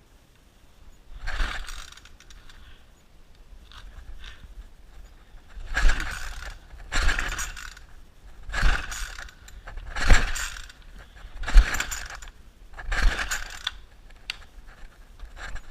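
Gas string trimmer's recoil starter cord yanked seven times, each pull a short rasping whir, without the engine catching. This is a trimmer that won't start.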